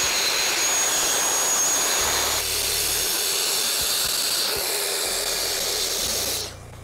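Festool TSC 55 KEB cordless plunge track saw cutting along its guide rail through plywood, a steady whine with a thin high tone for the first two seconds. It stops about six and a half seconds in.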